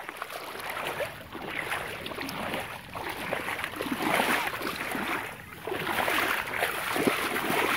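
Shallow water sloshing and splashing in repeated surges, as from legs wading through a muddy lagoon.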